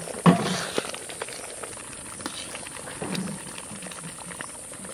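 Thick lentil-and-mushroom dal simmering in a kadai, bubbling and popping with small clicks. A sharp knock about a third of a second in, likely the metal spatula against the pan.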